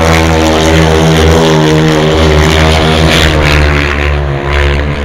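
Grass track racing sidecar outfit's engine running hard at high revs as it slides past close by. The pitch wavers slightly and the sound eases a little near the end.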